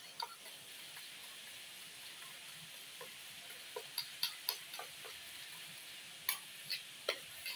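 A fork stirring and whisking egg and grated cheese in a stainless steel bowl, with a few light, scattered clinks of the fork against the metal over a steady faint hiss.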